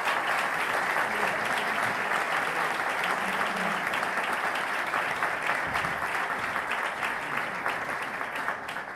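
An audience of seated people applauding: steady, dense clapping that starts to taper off near the end.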